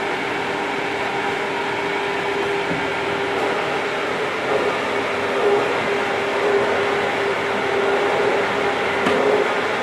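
Rexton inline duct exhaust fan running steadily: a constant rush of air with a steady motor hum, a couple of faint clicks near the end.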